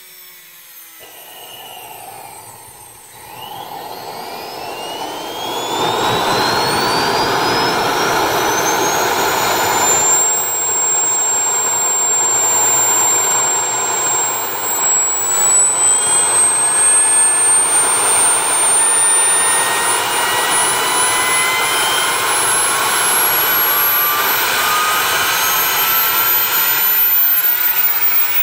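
JetCat model jet turbine starting up and accelerating: a high whine that rises steadily in pitch as the rotor spools up, with the rushing noise of the running turbine growing loud about six seconds in.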